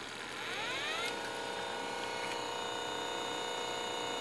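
A motor in an opened early-1980s Hitachi top-loading VCR spinning up: a whine rises in pitch for about a second, then holds at a steady pitch.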